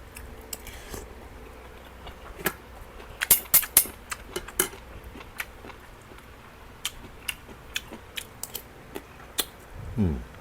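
Close-up eating sounds: someone chewing stir-fried cabbage, with irregular sharp crunches and clicks, a quick cluster of them about three to five seconds in.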